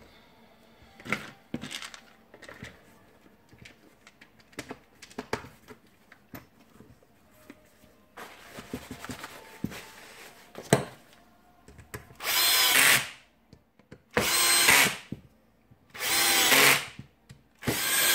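A cordless drill-driver driving the housing screws of a cordless drill home, in four short runs of about a second each over the last six seconds. Before that come scattered clicks and knocks of plastic parts being handled and fitted together.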